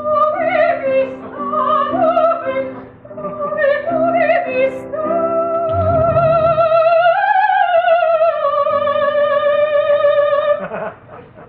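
Music: an operatic voice sings with wide vibrato over sustained instrumental chords. It moves through short phrases and then holds one long note that swells about halfway through and is released near the end.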